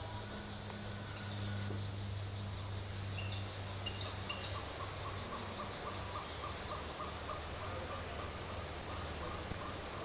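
Insects droning steadily at a high pitch. A few short chirps come in the middle, and a rapid run of evenly spaced short notes, about four a second, follows in the second half, over a low steady hum.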